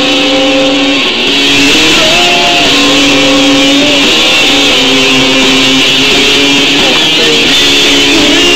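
Punk rock song with electric guitar, played loud, with long held notes that now and then slide in pitch.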